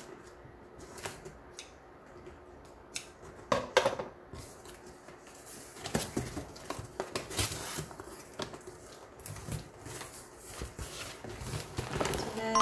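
Scissors cutting through the tape and cardboard of a shipping box, with irregular snips and scrapes and one louder snip about three and a half seconds in. From about six seconds in there is denser rustling of cardboard and packaging as the box is opened.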